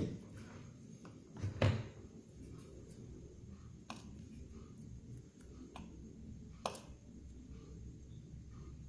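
Small clicks and taps of hand tools handling a smartphone on a workbench during a power-switch repair, with a louder knock about one and a half seconds in.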